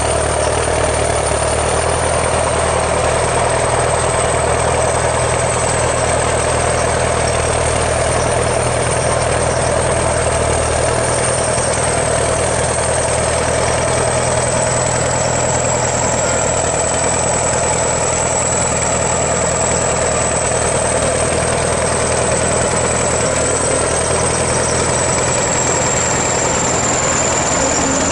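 ChTZ T-170 bulldozer's diesel engine running steadily, with a thin high whine above it that drifts slowly lower.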